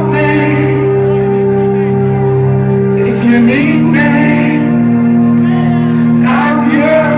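Loud trance music over a club sound system: long sustained synth chords that change to a new chord about halfway through, with rising sweeps or vocal glides near the start, in the middle and near the end.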